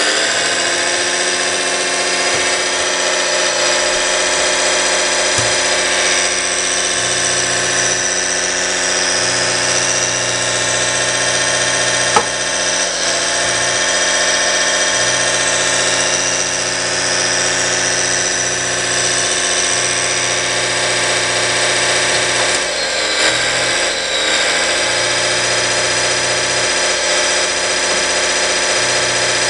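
Radio-controlled scale hydraulic excavator running: a steady engine sound from its onboard sound system, with a motor-driven hydraulic pump whirring that cuts in and out every few seconds as the machine is worked. One sharp click about twelve seconds in.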